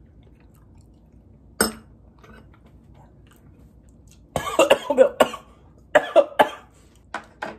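A man coughing in several short fits after a spoonful of spicy braised-chicken broth: a run of coughs about four seconds in, three more a second later and two near the end. A single sharp sound comes about a second and a half in.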